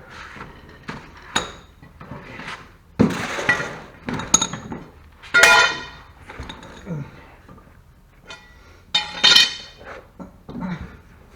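A steel mower blade and hand tools being handled, clanking and clinking against metal. There are lighter clinks and three louder clanks, some with a short metallic ring.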